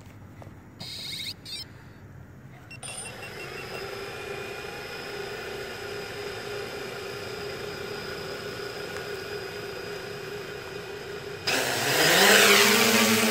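3DR Solo quadcopter's electric motors spinning the propellers at a steady idle hum, with a short run of beeps as they start. About three-quarters of the way through the motors spool up loudly for takeoff in a rising whine that levels off.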